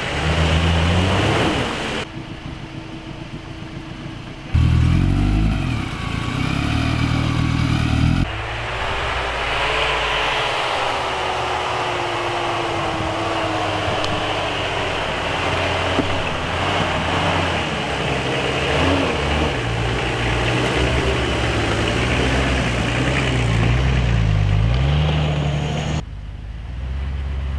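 Off-road vehicle engines revving and labouring under load, the pitch rising and falling. The sound changes abruptly four times.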